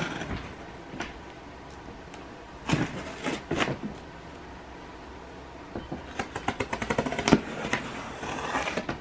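Knife blade cutting through packing tape along the seam of a cardboard box: a burst of scratchy rasping about three seconds in, then a fast run of clicky scraping a few seconds later that ends in a sharp snap.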